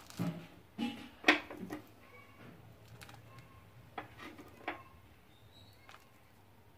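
A few light knocks and clinks from handling a cooking pan and utensils, clustered in the first two seconds and again about four seconds in, then only faint room tone.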